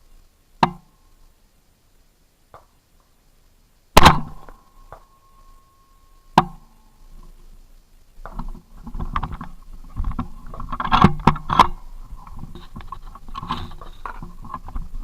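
Three shots from an AR-15 rifle with a SpecOp Mfg upper firing .223/5.56, a few seconds apart, the second the loudest. After them come several seconds of irregular rustling and knocking.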